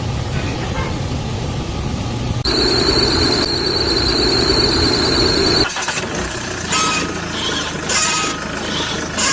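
Car noise with a steady high-pitched squeal that starts abruptly about two and a half seconds in and lasts about three seconds before cutting off. Rougher running noise with short surges follows.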